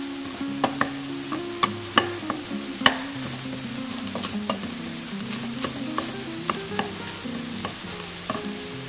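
A wooden spoon stirring minced meat frying in a stainless steel pot: a steady sizzle with irregular sharp knocks and scrapes of the spoon against the pot.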